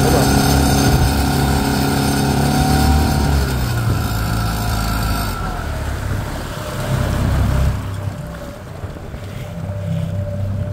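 Outboard motor driving an inflatable boat at speed, with a high buzzing riding on the engine note. About four seconds in the engine note drops as it is throttled back, the buzz cuts off about five seconds in, and the motor runs on more quietly over the wash of the wake. The owner traced the buzz not to the engine but to the chrome anti-theft lock on the motor.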